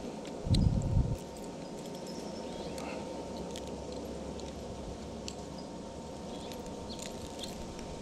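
Faint scattered clicks and rustles of hands working tangled line on a baitcasting reel while clearing a backlash, with a short low rumble on the microphone about half a second in.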